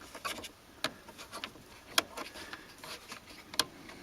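Small clicks, taps and rubbing of plastic parts as a climate control vacuum actuator and its lines are handled and fitted, with two sharper clicks about two seconds in and near the end.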